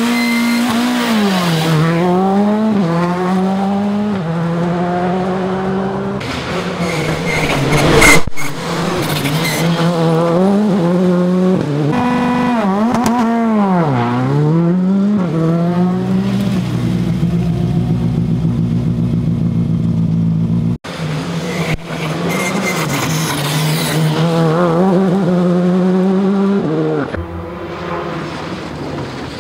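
Rally car engines revving hard and shifting up through the gears, the pitch climbing and dropping again and again, across several short clips that cut abruptly into one another. The loudest moment is a brief burst about eight seconds in.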